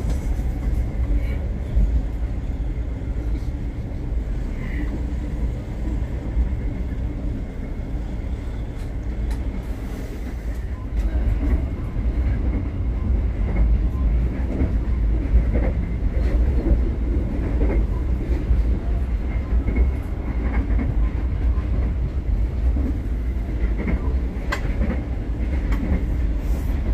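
Steady low rumble of a passenger train running along the track, heard from inside the coach, with a few faint clicks from the wheels and the carriage.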